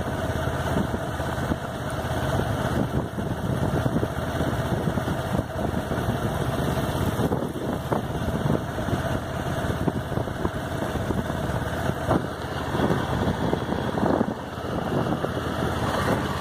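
Kawasaki ER-6n's 649 cc parallel-twin engine running steadily at road speed, mixed with wind rushing over the microphone.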